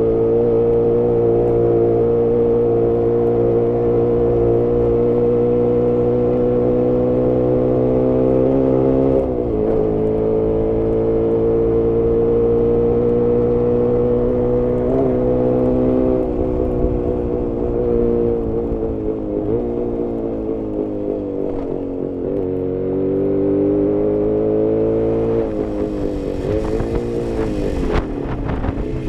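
Jawa 350 two-stroke parallel-twin motorcycle engine heard from on board while riding, running at steady revs with a brief drop about 9 seconds in. The revs then sag slowly, pick up again and rise and fall unevenly near the end, with a few sharp knocks. The engine is running very lean and short of power.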